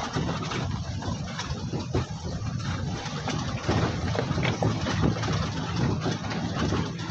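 Safari vehicle's engine running steadily, heard from aboard, with frequent knocks and rattles from the bodywork over a rough track.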